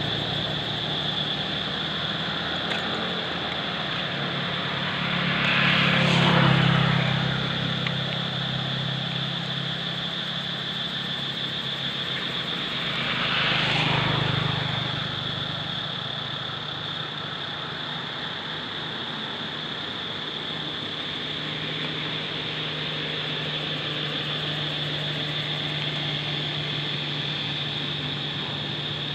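Two vehicles passing by, each rising and fading over a few seconds, about eight seconds apart, over a steady low hum and a steady high tone.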